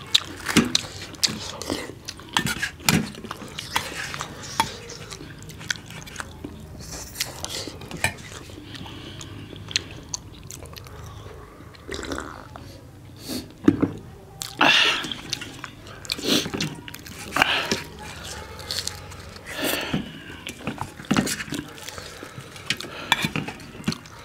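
Two people chewing bhature and curry close to the microphone, with irregular spoon clinks and scrapes against steel bowls and plates.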